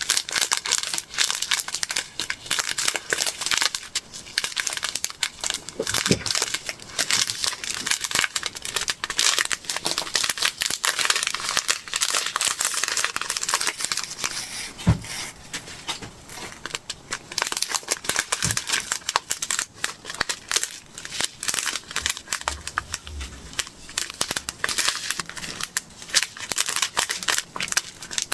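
Small plastic bags of diamond-painting drills crinkling and rustling steadily as they are handled, with a few soft knocks.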